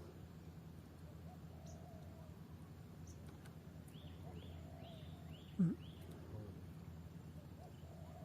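A bird calling a quick run of about six short, falling notes, starting about four seconds in, over faint outdoor background. A single low thump comes midway.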